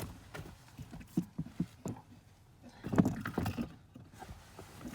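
Handling noise of hands working at the open glove box area: scattered light knocks and clicks, with a louder cluster of bumps about three seconds in.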